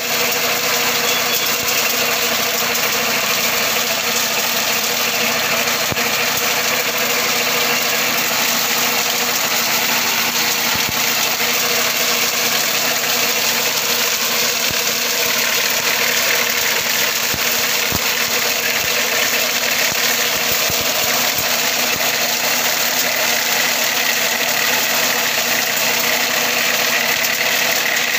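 Mini tractor engine running steadily under load, driving a sugarcane de-trashing machine whose spinning rotors strip the dry leaves from the cane: a loud, unbroken mechanical drone with a steady whine.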